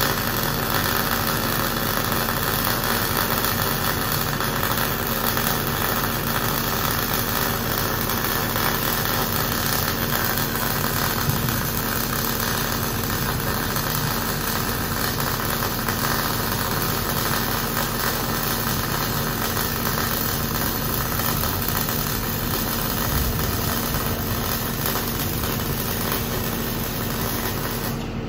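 Arc welding a steel top plate onto a steel post: the welding arc runs steadily, with a steady hum underneath.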